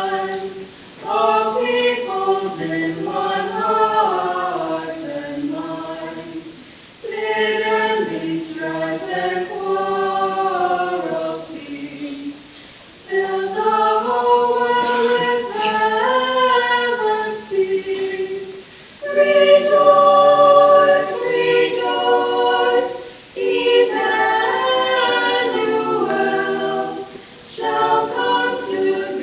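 A small mixed-voice school chorus singing unaccompanied, in phrases a few seconds long broken by short pauses for breath, loudest a little past the middle.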